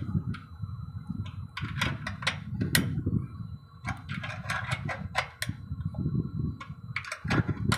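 Irregular metallic clicking from a wrench working the alignment bolt on a microwave antenna's pole mount during fine alignment, over a low, fluctuating rumble of wind on the microphone.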